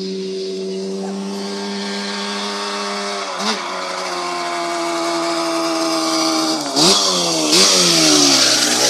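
Yamaha Banshee quad's two-stroke parallel-twin engine running, growing louder as the quad approaches. The revs jump briefly about three and a half seconds in, then twice more sharply near the end, the pitch falling away after each.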